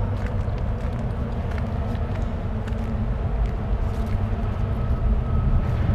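Steady low rumble of wind buffeting the camera microphone, with a few faint clicks.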